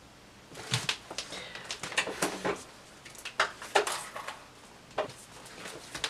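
A series of irregular knocks, clicks and rustles, things being bumped and handled in a small room during a mishap.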